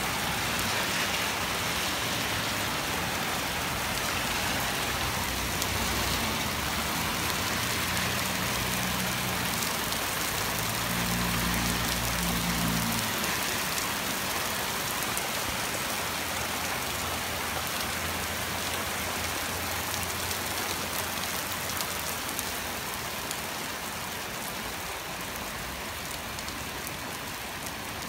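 Heavy rain falling steadily on roofs and trees. A car passes on the wet street between about seven and thirteen seconds in. The rain eases slightly near the end.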